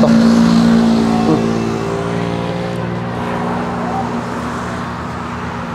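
A motor vehicle's engine running close by, a steady low hum that slowly fades over a few seconds.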